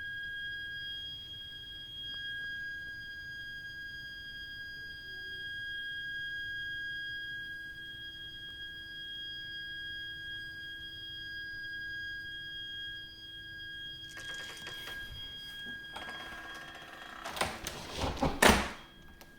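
Heating system's heat interface unit (HIU) and pipework making a continuous shrill, high-pitched whine, a steady tone with a higher overtone. It is an abnormal fault noise that goes on even when no heating or hot water is being used. Near the end come a few seconds of rustling and knocks, the loudest sounds here.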